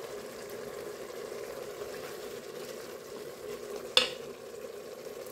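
Tripe and soffritto sizzling in white wine in a Moulinex Cookeo's pot on high heat, stirred with a wooden spoon. One sharp knock about four seconds in, the spoon against the pot.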